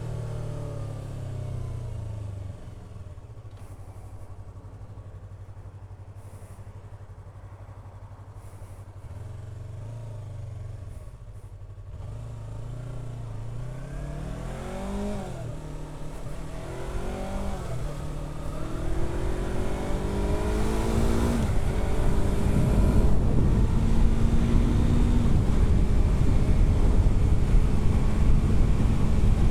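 Yamaha R3 321 cc parallel-twin engine, low and steady for the first several seconds, then revving up and dropping back three times in the middle as it is shifted up through the gears. Over the last third it holds a steadier, louder note at speed, with wind rush on the microphone.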